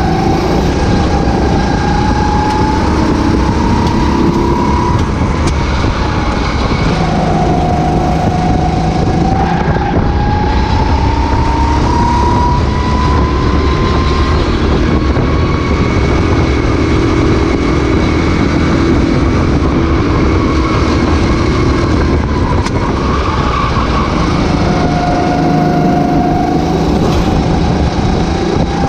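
Racing kart engine at full race pace, its pitch climbing steadily for several seconds at a time and dropping sharply twice before rising again as the kart accelerates out of corners and lifts into them.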